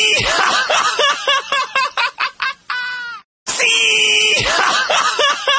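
Laugh sound effect: a drawn-out, high-pitched "sííí" breaking into rapid "jajajaja" cackling, which stops about three seconds in. Then comes another long "sííí" and a second burst of cackling.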